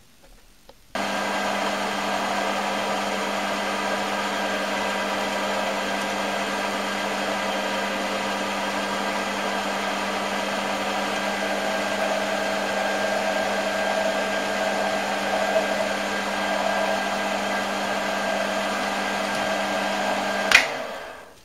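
Optimum D180 x 300 bench lathe's motor and spindle switched on about a second in, running at a steady speed with a steady whine as it turns an end mill in its collet chuck. Near the end it is switched off with a sharp click and quickly winds down.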